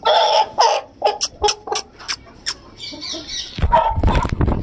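Young Aseel cockerel squawking and clucking in loud short bursts. A run of sharp clicks falls between the bursts, and a loud, low-reaching flurry of noise comes near the end.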